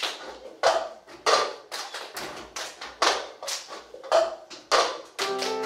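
A steady beat of sharp percussive strikes, about one every 0.6 seconds, each ringing briefly in the room. Near the end, music with held, plucked-sounding notes comes in over the beat.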